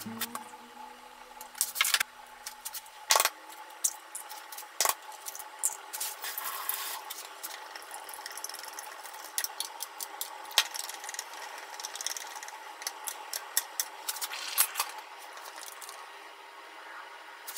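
Chopsticks clicking irregularly against a small glass bowl while an egg is beaten, with a few louder knocks of bowls and utensils set down on the counter in the first few seconds.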